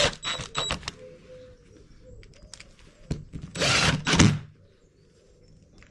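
Clicks and light knocks of nylon inserts being pushed and tapped into the pre-drilled holes of an MDF or ply drawer front, with a louder noisy burst lasting under a second a little past the middle.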